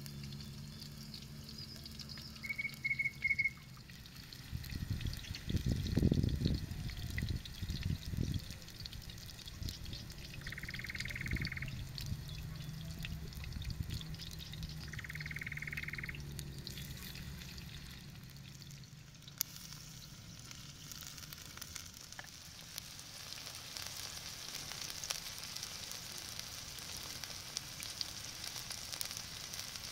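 Minced-chicken rounds frying in oil in a steel wok, a steady sizzle and crackle that grows louder in the second half as more pieces go into the oil. A few low thumps and rumbles come about five to eight seconds in.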